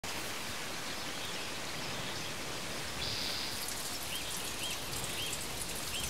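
Water trickling down a wet rock face and dripping into a small pool: a steady splashing patter. From about halfway through, small high chirps repeat about twice a second.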